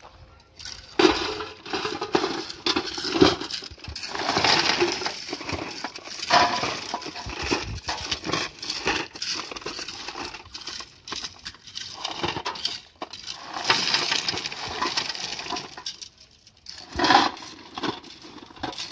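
Stone ballast of a railway track clinking and crunching in irregular, uneven bursts, stones knocking against each other.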